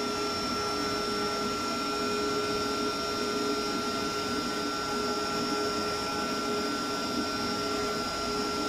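Steady hum and hiss of a ZTE telecom power cabinet running, with several fixed whining tones, typical of its rectifier cooling fans.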